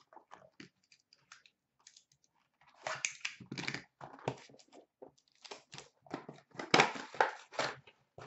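A 2015-16 Upper Deck Contours hockey card box being torn open by hand and its foil packs pulled out: irregular crinkling and ripping of wrapper, foil and cardboard, a few faint ticks at first, then busy from about three seconds in.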